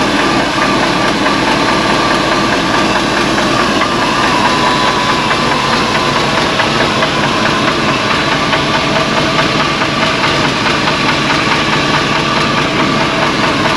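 1948 GMC truck engine idling steadily as it warms up, with a light rattle that the owner puts down to piston slap in cylinders that are chewed up.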